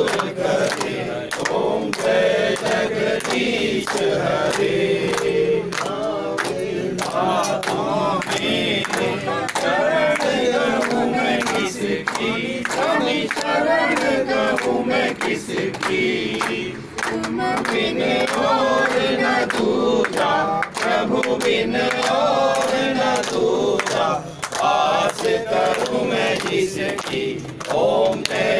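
A crowd singing a Hindu devotional chant together in unison, with hand clapping along throughout.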